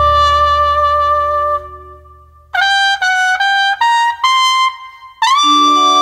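Trumpet playing: a long held note that fades out about a second and a half in, then after a short break a quick run of short notes, then a long note scooped up into pitch near the end, with lower held notes from other instruments entering underneath.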